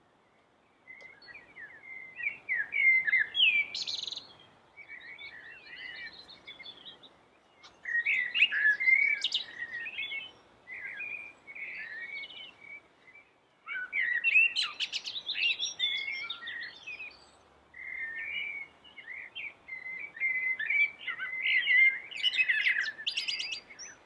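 Male common blackbird singing: a run of warbling phrases with short pauses between them, laced with bursts of higher, squeaky twittering, starting about a second in.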